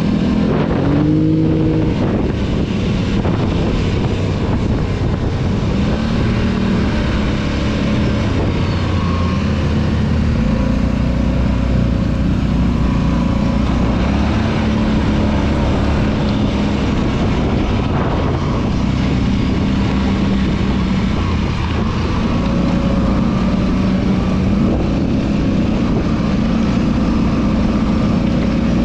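ATV engine running while being ridden, its pitch rising and falling every few seconds as the throttle opens and closes.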